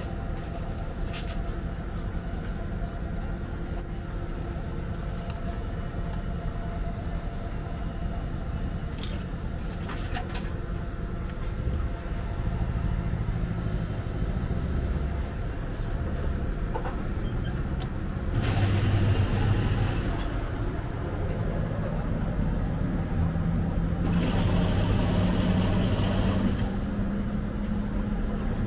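Retro shaved-ice vending machine taking coins and then running: a few sharp coin clicks in the first seconds over a steady machine hum, then a louder low motor rumble and, in the second half, two noisy stretches of a couple of seconds each while it fills a cup with shaved ice and syrup.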